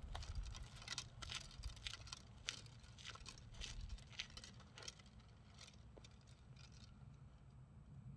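Faint footsteps on an asphalt road, growing fainter as the walker moves away and fading out about two-thirds of the way through, leaving a low hum.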